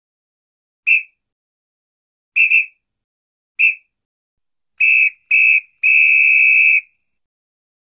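Sound effects for an animated subscribe-button end screen: a series of short, high, whistle-like pips (one, a quick pair, then one more), followed by two short tones and a last one held for about a second.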